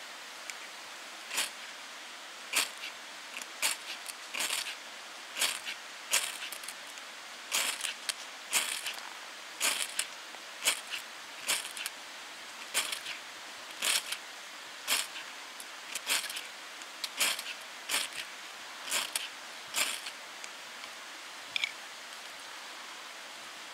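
Ferrocerium rod (fire steel) struck with a scraper to throw sparks onto feather-stick shavings: a steady series of short, sharp scrapes, about one a second. The strikes stop near the end, once the shavings are alight.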